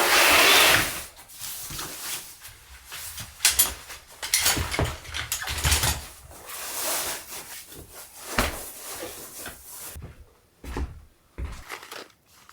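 Household handling sounds, such as dishes and cupboard or drawer doors being knocked and set down, while tea is being made. A loud rushing hiss fills the first second, followed by a string of irregular knocks and clatters.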